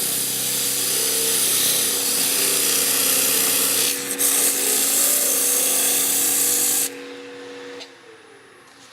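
120-grit sandpaper held against a wooden spindle spinning on a wood lathe: a loud steady hiss over the lathe's motor hum, eased off briefly about four seconds in and lifted away about seven seconds in. The lathe then spins down, its hum falling in pitch and fading.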